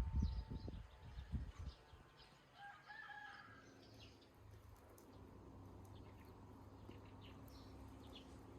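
A rooster crowing once in the distance, a short pitched call about three seconds in, over outdoor ambience with scattered small bird chirps. Low rumbling thumps come in the first couple of seconds, and a steady low hum follows after the crow.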